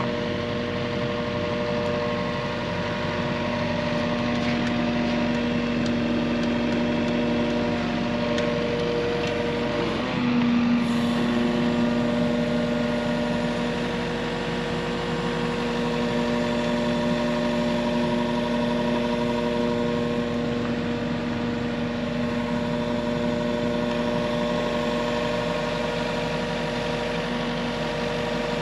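Yanmar ViO55 mini excavator's diesel engine running steadily with a constant hum. About ten seconds in, its pitch steps up slightly and stays there.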